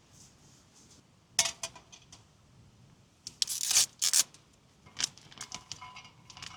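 Metal cooking utensils clinking and scraping against a small camping pot, in sharp separate clinks with a louder scraping rustle in the middle.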